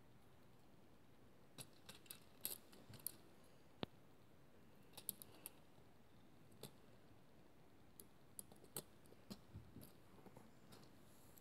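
Small, sharp clicks and taps of LEGO plastic as a minifigure is handled and pressed into a LEGO car's seat, coming in scattered groups over a quiet background.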